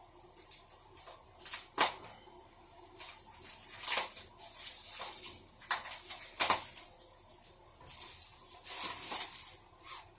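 Plastic packaging of a rolled mattress topper being pulled open and handled: irregular crinkling and rustling with several sharp snaps.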